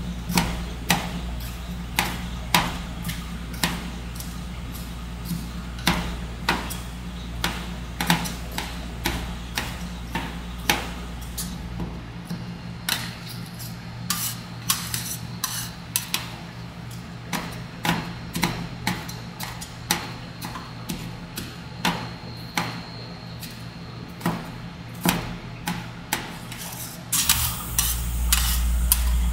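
Metal spatulas chopping and tapping on a rolled-ice-cream cold plate: sharp, irregular clacks about one or two a second over a steady low hum, getting louder and denser near the end.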